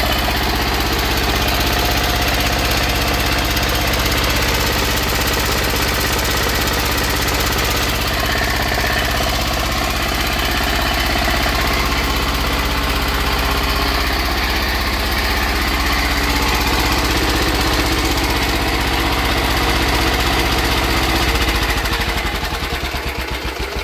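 Small high-compression diesel engine converted to run on wood gas, running at a steady speed. Near the end it slows and winds down toward a stop.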